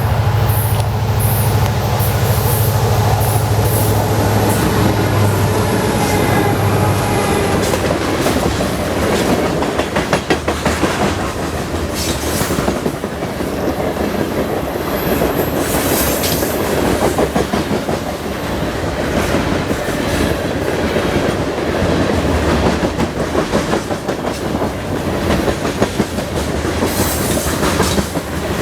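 Canadian National freight train passing: the diesel locomotives' engines hum steadily for the first seven seconds or so. Then the freight cars rumble by, their wheels clacking over the rail joints, with a few brief high wheel squeals around the middle.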